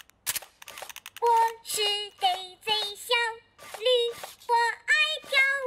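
A few sharp clicks, then from about a second in a cartoon toy donkey sings in a high, squeaky voice: a string of short notes hopping between two pitches about three times a second.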